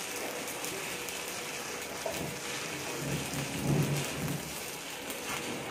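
Stick (shielded metal arc) welding arc crackling and sizzling steadily as a second-layer pass is run. A low hum swells briefly near the middle.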